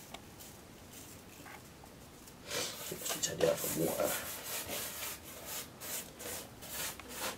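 A hand sweeping spilled salt across a wooden board: a run of dry, irregular scraping rubs that starts about two and a half seconds in.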